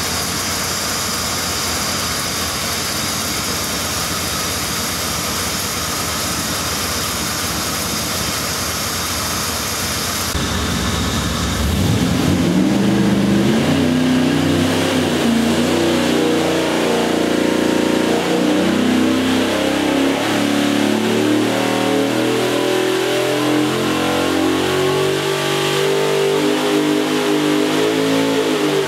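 383-cubic-inch LT1 small-block V8 running on an engine dyno through long-tube headers. It runs steadily for about the first ten seconds. From about twelve seconds in, it goes through a dyno pull, the engine speed climbing steadily, and it drops off right at the end.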